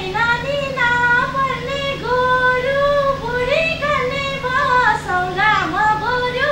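A woman singing a Nepali dohori folk melody in a high voice, in long phrases that slide and turn between notes, over a faint steady low drone.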